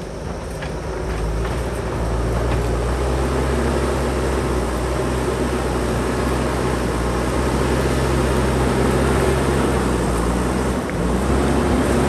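JCB backhoe loader's diesel engine running steadily under load as its front bucket pushes a pile of earth and rocks along a dirt road, growing louder over the first couple of seconds as the machine comes closer, with a brief dip near the end.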